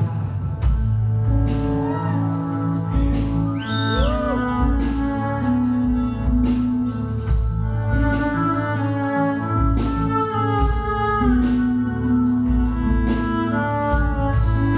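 Live band playing an instrumental passage with no vocals: acoustic guitar, a drum kit with a pulsing kick drum and regular cymbal hits, and a lead instrument holding long melodic notes, with a few sliding notes in the first few seconds.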